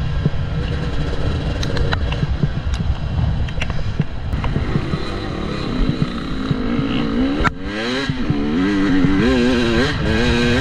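KTM 300 EXC's single-cylinder two-stroke engine under way off-road, revving up and down. In the second half the pitch swings up and down repeatedly with the throttle, with a short drop about seven seconds in, and scattered sharp clicks run through it.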